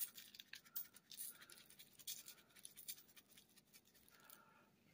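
Adobo seasoning shaken from a shaker bottle over raw pork chops: faint, quick, irregular scratchy shakes that stop shortly before the end.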